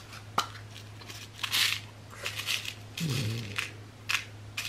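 A small clear plastic tackle case clicks open, then the loose metal snap swivels inside it rattle and clink in short bursts as fingers sort through them. A steady low electrical hum runs underneath.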